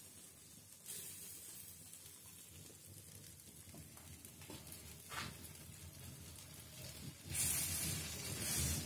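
Meat roasting at an asado, sizzling steadily, with one sharp crackle about five seconds in and a louder surge of sizzling near the end.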